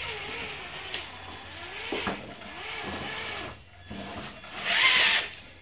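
Electric drive motor and geartrain of a 1/10-scale radio-controlled 4x4 crawler whining, its pitch rising and falling as the throttle is worked while it climbs with front and rear differentials locked. About five seconds in comes a short, louder rasping burst.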